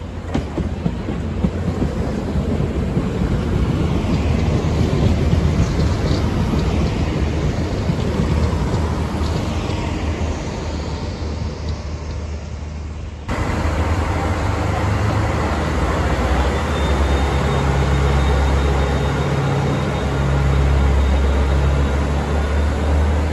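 A diesel passenger train running through the station, its rumble and rail noise building and then easing off as it passes. About 13 s in the sound cuts to a Northern Ireland Railways Class 3000 diesel multiple unit running at the platform, a steady low engine drone with a faint high whine.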